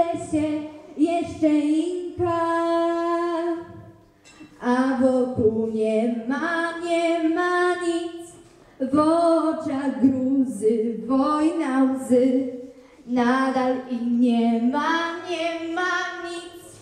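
A young woman singing solo into a microphone, without accompaniment, in long held phrases with three short breaks between them.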